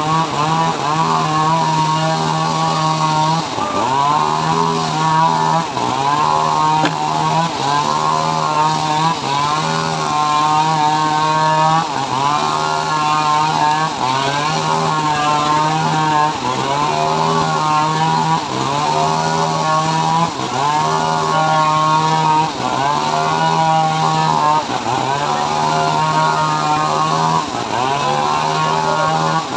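Homemade engine-driven srekel sawmill ripping a teak log. The engine runs loud and steady, its note dipping and recovering about every two seconds as the log is pushed through the blade.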